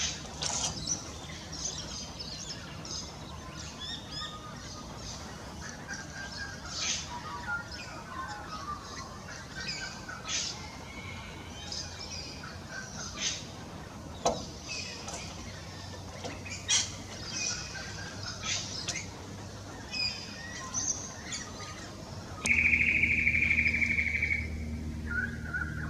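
Several birds giving short chirps and squawks, one after another. About 22 s in, a louder, steady, rattling call runs for about two seconds.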